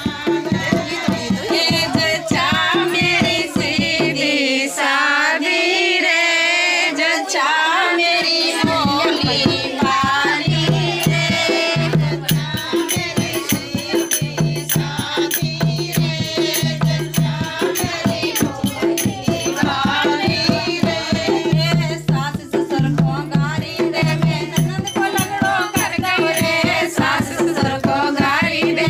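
Women singing a sohar, a folk birth song, together to a dholak beat. The drum drops out for about four seconds near the start, leaving the voices alone, then comes back in.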